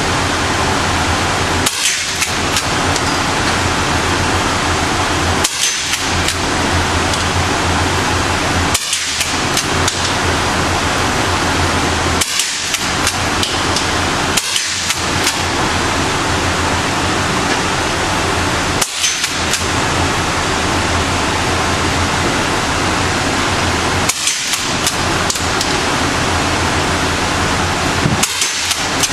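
About eight single gunshots fired at an irregular pace, several seconds apart, over a steady loud hiss. Each shot is followed by a brief drop in the background as the recorder's level dips.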